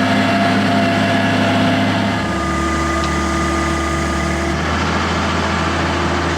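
Engine of the boat-yard trailer rig that moves a sailboat down the slipway, running steadily; its note changes about two seconds in.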